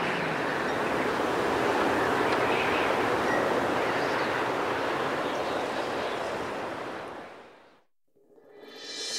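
A steady rushing noise of water and air, like surf. It fades out about seven seconds in to a moment of silence. Music with held notes comes in near the end.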